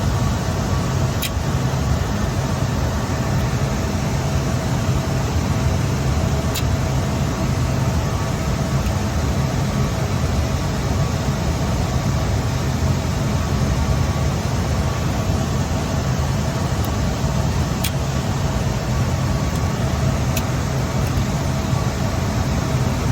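Loud, steady whir of cooling fans in rack-mounted network equipment, with a few faint clicks.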